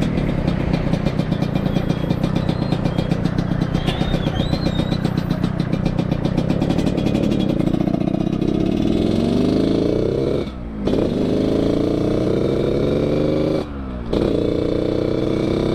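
Yamaha RX-King two-stroke single-cylinder engine breathing through an underbelly expansion-chamber exhaust, ridden under way. It starts as a fast, steady stutter of firing pulses, then revs up in rising pitch, cut by two brief drops about ten and fourteen seconds in where the throttle closes for upshifts.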